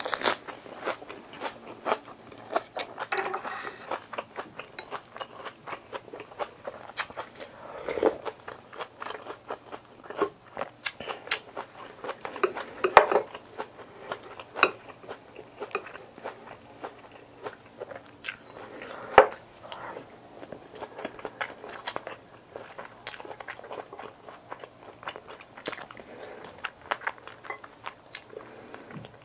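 Person eating a Korean home meal, close-miked: irregular chewing and biting, with many sharp crisp clicks and crunches; the loudest clicks come about 13 and 19 seconds in.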